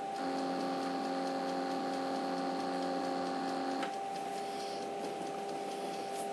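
Emco Compact 5 CNC lathe running with a steady whine of several tones. About a quarter second in, a stepper motor drive joins with its own whine as the turret is fed up towards the chuck, and it cuts off just before four seconds.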